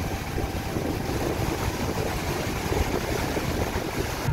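Steady rush of churning water and wind along the hull of the KM Kirana VII passenger ship under way, with a low rumble underneath.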